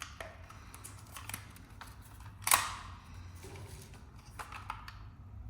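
Hard plastic clicking as a smoke alarm is worked off its ceiling mount, with one loud sharp snap about two and a half seconds in.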